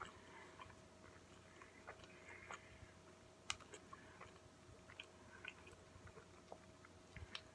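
Faint chewing of a mouthful of burger with the mouth closed: soft wet smacks and small clicks, with one sharper click about three and a half seconds in.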